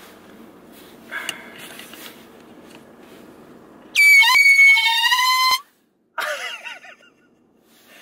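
A handheld canned air horn fires one very loud, piercing blast of about a second and a half, starting about four seconds in and cutting off abruptly. It is followed by a brief wavering cry.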